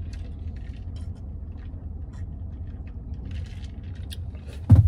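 Steady low rumble of a pickup truck idling, heard from inside the cab, with faint small clicks and sips as a man drinks from a plastic shaker bottle. A brief louder sound comes near the end.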